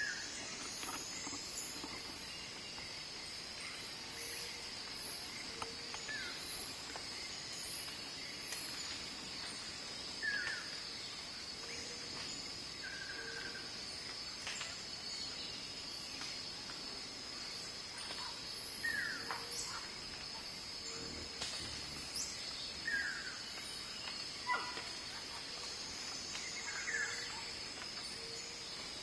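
Tropical forest ambience: a steady high-pitched insect drone, with short falling chirps scattered every few seconds.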